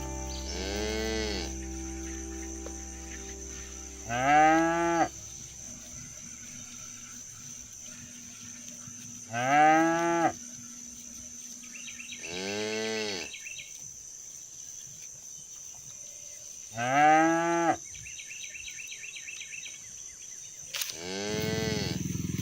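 Cattle mooing: four short, loud moos spaced several seconds apart, each rising and then falling in pitch.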